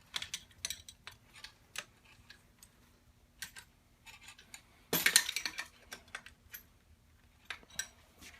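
Light metallic clicks and clinks of a 15mm wrench working on bicycle pedals as they are snugged tight, with a louder rattle of clinks about five seconds in.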